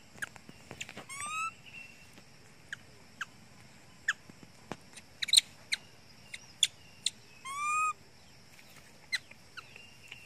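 Baby macaque eating a peeled rambutan: irregular wet clicking and smacking chews. There are two short, high, squeaky calls, one rising about a second in and one near the eight-second mark.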